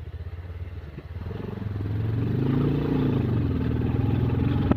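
Motorcycle engine, a Bajaj Pulsar 220F's single-cylinder, running and picking up revs from about a second in, then holding steady at a higher pitch and louder level.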